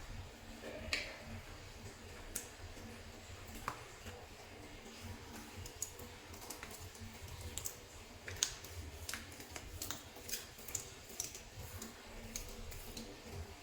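Soft clay being kneaded and mixed by hand, giving irregular small sticky clicks and crackles.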